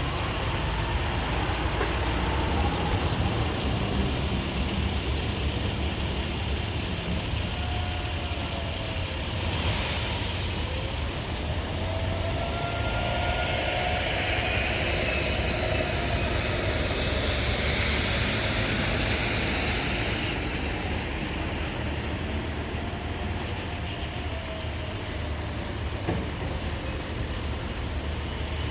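Heavy truck and road-traffic rumble, with faint distant outdoor warning sirens sounding for a monthly test; their wail slowly rises and falls several times in the middle stretch, nearly buried under the trucks.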